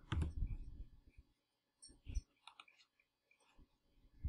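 A few sharp computer mouse clicks, with a low thud just at the start.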